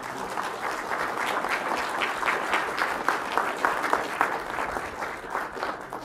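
Audience applauding, many hands clapping together and thinning out near the end.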